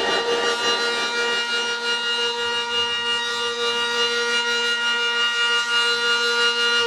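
Siren holding one steady pitch with many overtones, the pitch starting to fall at the very end.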